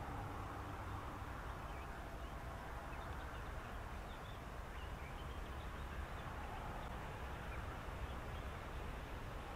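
Faint, scattered short high chirps from small animals calling in reeds, over a steady low rumble.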